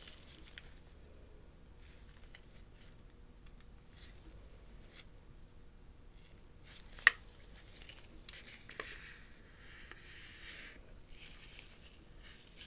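Handling noises from a DJI OM 5 smartphone gimbal in gloved hands: soft rubbing and light taps, one sharp click about seven seconds in and a smaller one a moment later, then a hissing slide as the metal telescoping extension rod is drawn out.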